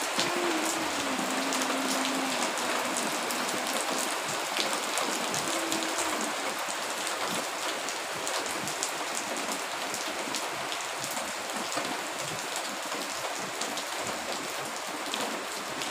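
Steady rain falling, an even hiss dotted with short sharp ticks of drops.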